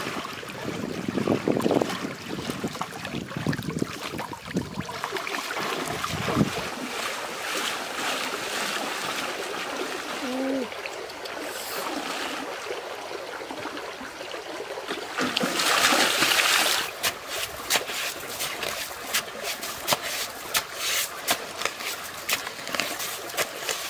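Legs wading through shallow river water, splashing and sloshing, then, about two-thirds in, a rapid string of short scrapes and knocks of digging into wet riverbank mud.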